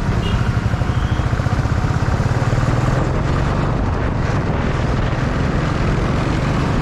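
Motorcycle engine running steadily while riding on the road, heard from the rider's own bike, under a loud rushing noise.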